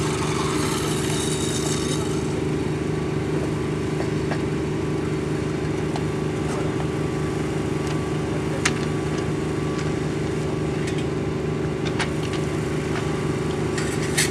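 Small engine running steadily at a constant speed, with a few sharp knocks scattered over it.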